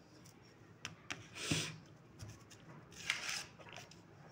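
Faint plastic handling sounds: a few clicks and two short scraping rustles as the round plastic diffuser and light-guide sheets are lifted out of an LED panel light's frame.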